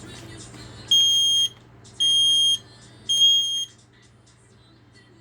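A smoke alarm sounds its test alarm: three loud, high-pitched beeps, each about half a second long and about a second apart, in the standard three-beep alarm pattern.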